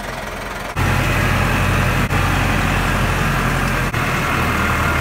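A tractor engine running steadily and loudly with a low, even note. It comes in abruptly about a second in and drops out for an instant twice.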